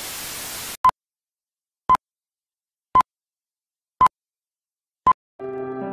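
TV static hiss that cuts off suddenly just under a second in, followed by five short beeps of one pitch, about one a second, from a film-leader countdown. Soft piano music begins near the end.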